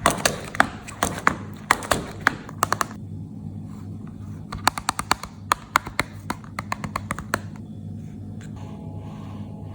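Packaging of a chocolate box being handled and opened: crisp crackles and clicks in two runs, the first over the opening three seconds and the second a little after the midpoint, over a steady low hum.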